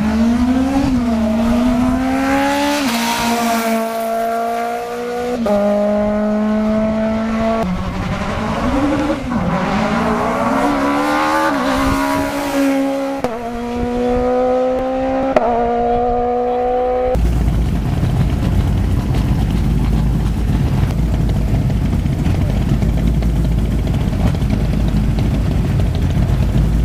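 Rally car engine accelerating hard through the gears, its pitch climbing and dropping back at each upshift, several times over. About seventeen seconds in it changes abruptly to a steady low rumble of a rally car idling close by, in neutral.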